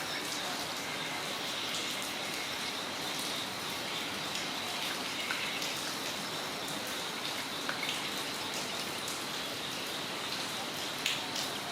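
Steady rain falling on a yard, with scattered individual drops striking close by. A thin, steady high-pitched tone, likely insects, runs underneath.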